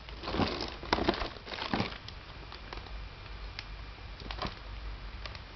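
Packaging being handled: a few rustles and knocks from the box and its inserts in the first two seconds, then only occasional faint taps.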